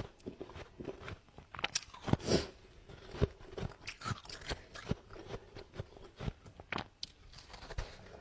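Freezer frost being crunched and chewed close up: irregular sharp crunches, the loudest about two seconds in.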